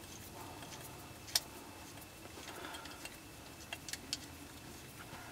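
A few faint metallic ticks from an 1/8 inch Allen key and a 14 mm open-ended wrench working on the screw and machined aluminum ball of a phone mount as they are tightened. One clearer tick comes about a second and a half in, then three close together near the four-second mark.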